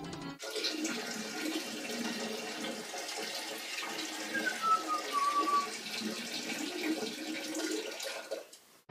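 Water running steadily from a tap into a sink, with a brief falling whistle about halfway through.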